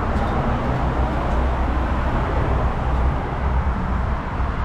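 Steady low rumble of vehicle and road noise, with no distinct events.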